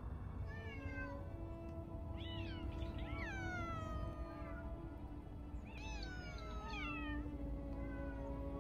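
Domestic cats meowing, each call falling in pitch: a short meow about half a second in, a run of several overlapping meows between two and four seconds, and a couple more near seven seconds. Waltz music plays underneath.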